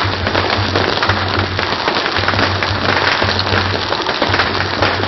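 Fireworks display crackling and popping in a dense, continuous barrage of small bursts, recorded on a phone.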